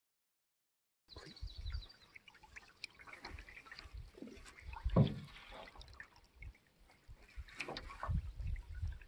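After about a second of silence, water splashing and trickling, with scattered knocks and low thumps; the loudest thump comes about five seconds in.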